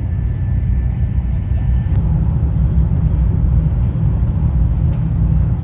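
Taiwan High Speed Rail train running at speed, a steady low rumble that cuts off abruptly near the end.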